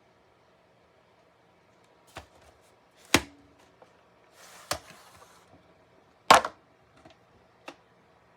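A handful of sharp clicks and knocks, a double one among them, with a short scraping rustle in the middle, like hard plastic objects being handled.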